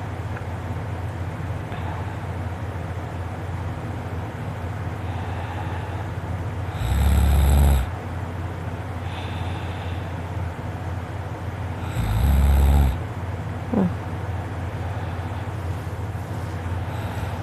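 A man snoring deeply in his sleep: two loud snores about five seconds apart, the second followed by a brief squeak falling in pitch, over a steady low hum.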